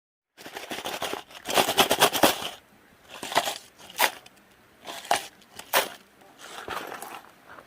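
Footsteps crunching on a dry, rocky trail: a quick run of crunches about a second in, then single steps roughly once a second.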